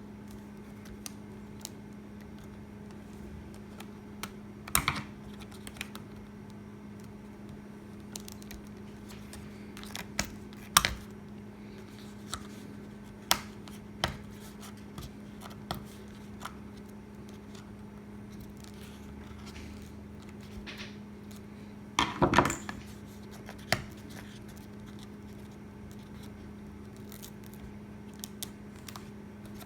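Scattered clicks, taps and short scrapes of hand work on a laptop's underside: screwdriver and plastic bottom cover being handled as the cover's screws come out, with a brief clatter about two-thirds of the way through. A steady low hum runs underneath.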